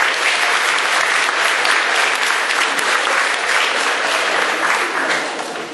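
Audience applauding, the clapping fading near the end.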